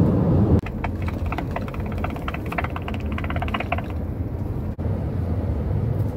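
Radio scanner farting: a rapid, stuttering buzz of broken pulses that gets denser, then stops about four seconds in. Under it is the low hum of the car cabin.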